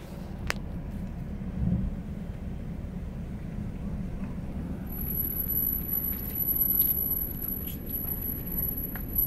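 Car driving slowly, its engine and tyres giving a steady low rumble heard from inside the cabin. A sharp click comes about half a second in, and a thin high-pitched whine sets in about halfway through.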